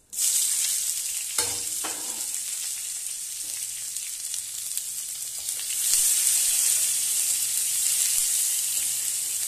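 Chopped onions hitting hot mustard oil in a kadai and sizzling at once, loud and steady, while a spatula stirs them. The sizzle swells again about six seconds in.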